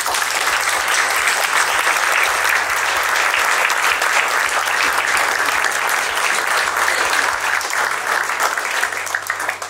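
Audience applauding: many people clapping at once in a dense, steady round that starts suddenly and tapers off near the end.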